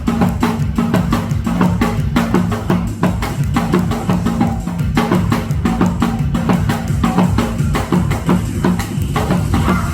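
Janggu, the Korean hourglass drum, played in a fast, dense run of sharp stick strikes over accompanying music with a steady bass line.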